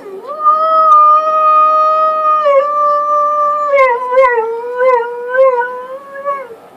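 A dog howling, set off by a siren: one long howl that rises and holds steady for about two seconds, then wavers and breaks into short yelping swoops before it stops.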